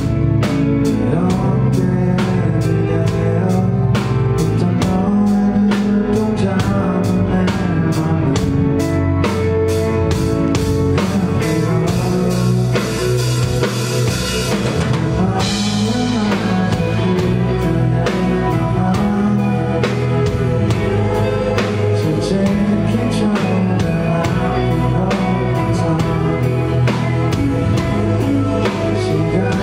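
Live indie rock band playing: drum kit keeping a steady beat under electric guitar and bass, with a cymbal wash about halfway through.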